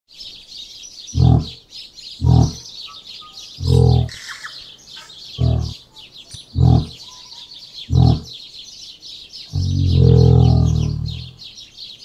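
Audio recreation of a moa call: six short, deep booming calls a second or so apart, then a longer deep call near the end. Behind them, a steady chorus of forest birds chirping.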